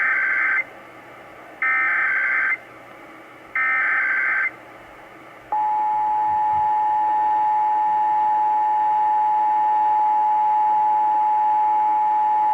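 Emergency Alert System test over AM radio: three bursts of SAME header data tones, each just under a second long and about two seconds apart. About five and a half seconds in, the steady two-tone EAS attention signal begins and holds.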